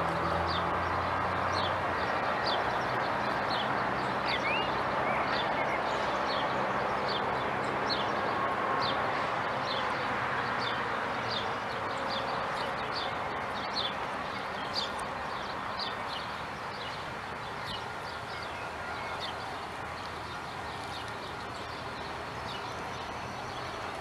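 A high, short chirp repeats evenly, about one every three-quarters of a second, over a steady outdoor hiss. A low engine hum fades out in the first two seconds.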